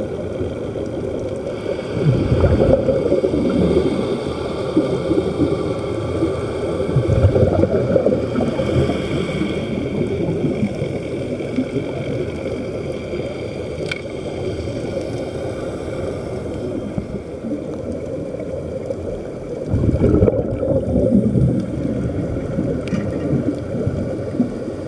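Underwater camera audio: a continuous low bubbling rumble of air streaming out of the diving helmets, swelling louder a few times.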